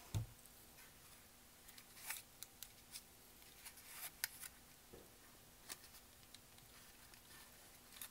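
Faint rustling and crinkling of paper rose petals being pinched and held by hand, with scattered soft clicks and a soft thump at the very start.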